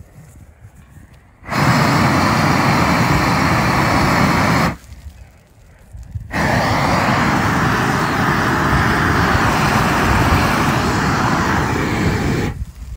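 Propane torch wand firing in two long blasts, about three seconds and then about six seconds, each starting and cutting off suddenly, with a short pause between, as it is used to light a brush pile.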